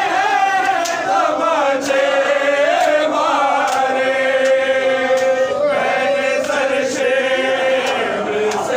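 Male voices chanting a noha, a Shia mourning lament, together in a slow melody with long held notes.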